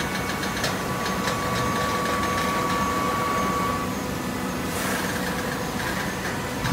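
Industrial horizontal baler running with a steady hydraulic hum and whine; the whine drops away about four seconds in and a short hiss follows. Light ticks sound in the first second or so.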